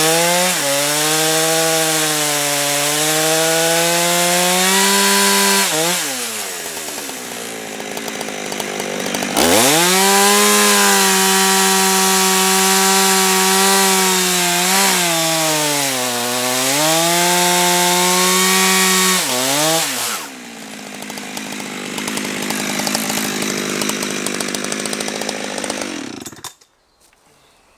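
Chainsaw milling a log lengthwise into thin boards: it runs at full throttle while cutting, drops to idle about six seconds in, then revs up and cuts again with two brief dips in speed. It falls back to idle and is shut off shortly before the end.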